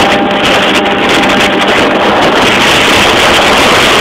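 Two-stroke Yamaha Jog RR scooter fitted with a Hebo Manston kit, running steadily at speed. Its engine note is mixed with loud, even wind rush on the microphone.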